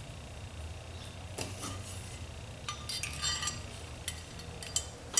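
Small metal carburetor parts clicking and clinking against the Tillotson Model X carburetor casting as it is handled and turned over, in short irregular clusters of light taps.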